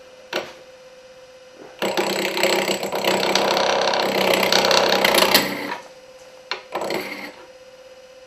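Wood lathe running with a steady hum. About two seconds in, a turning tool meets the spinning, out-of-round wood blank and gives a loud, rough scraping chatter for about four seconds, then stops. A few short knocks follow. The rough contact is the tool catching on the blank.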